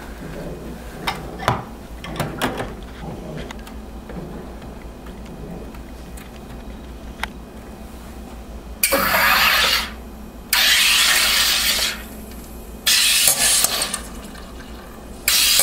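Home soda maker carbonating a bottle of soda: four loud hissing bursts of CO2 injected into the bottle, each about a second long, as the top button is pressed again and again. Before them, several seconds of light clicks and knocks.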